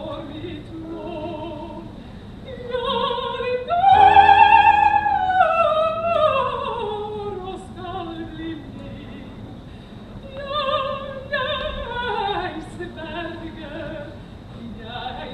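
Operatic singing with strong vibrato: a loud high held note about four seconds in that slides down, and another falling phrase a few seconds later.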